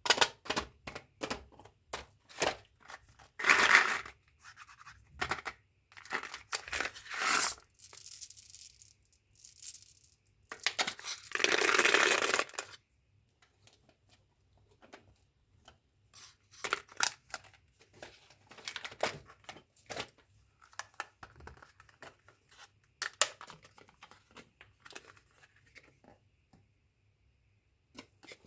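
Gum and candy packaging handled and torn open: a run of crinkles and clicks, with louder tearing several times and one longer tear lasting about two seconds near the middle.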